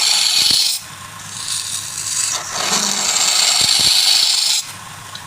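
Wood lathe with a turning tool cutting into the spinning workpiece, a loud hissing scrape in two long passes with a short easing between, over the low steady hum of the lathe running.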